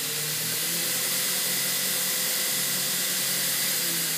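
Outlaw II 2x72 belt grinder running unloaded at high speed, its 1.5 horsepower motor on a variable frequency drive: a steady hiss of the abrasive belt over the small contact wheel, with a steady whine.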